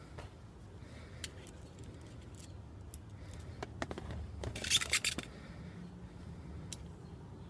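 Small screws and lock nuts clicking and rattling as they are handled and fitted to a plastic speaker bracket: scattered light clicks, with a quick cluster of rattling clicks about halfway through.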